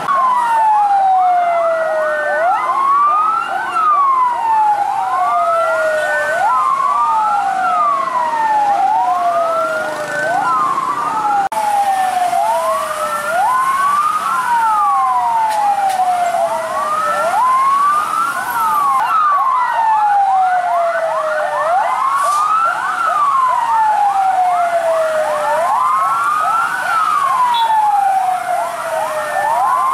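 Several emergency-vehicle sirens wail at once and out of step, each rising quickly and falling slowly, with a faster yelping siren running beneath them.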